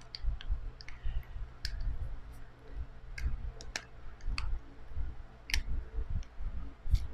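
Irregular sharp plastic clicks and dull handling bumps as the arms of a Feiyu Tech Vlog Pocket handheld gimbal are turned by hand.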